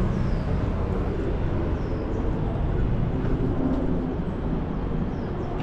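Road traffic going by, a steady low rumble of engines and tyres.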